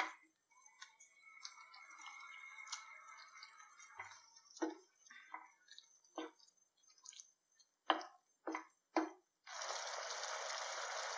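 Boiled eggs dropped one after another into thick, simmering curry gravy in a pan, each landing with a short wet plop. Near the end a steady sizzling hiss starts up and holds.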